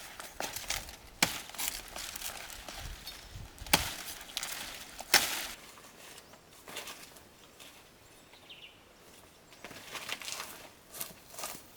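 Irregular sharp knocks and rustling from hand work, with three louder chop-like strikes in the first half, then quieter scattered clicks and rustles near the end.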